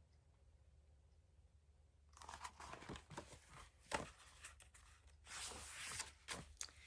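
Faint paper rustling and soft clicks of a picture book's pages being handled and turned, starting about two seconds in after a near-silent stretch.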